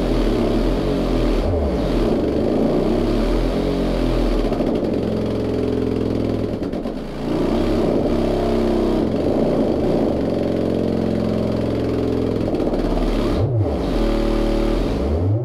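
Sundown Audio X-12 v.2 12-inch subwoofer playing a bass frequency-sweep test track in free air, pushed hard to show its excursion. The low tones glide up and down and come out loud and heavily laden with overtones, with a brief dip about seven seconds in.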